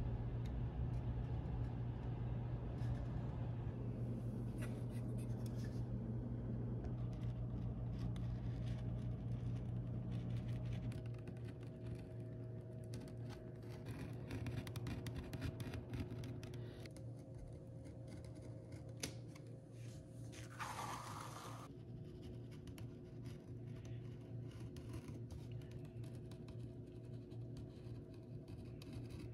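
A pen scratching as a paper pattern is traced onto leather, then a utility knife blade cutting through the leather, over a steady low hum that drops in level about a third of the way through. About twenty seconds in, one longer hissing scrape stands out.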